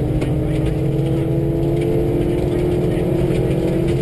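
Subaru rally car's engine running hard at high revs, its pitch slowly climbing as it accelerates, with tyre and gravel road noise heard from inside the cabin. Two passes of the same car are overlaid, one in each stereo channel.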